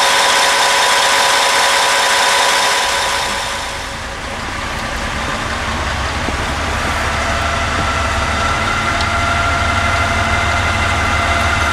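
A railcar diesel engine running loud in its engine compartment, with a steady high whine over it. From about four seconds in, a ČD class 854 diesel railcar's engine rumbles deeper and builds steadily as the railcar moves off.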